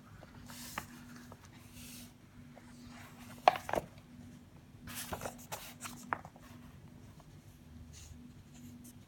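Paper rustling as a paperback textbook is opened and its pages handled and turned, with a few sharp taps, the loudest about three and a half seconds in.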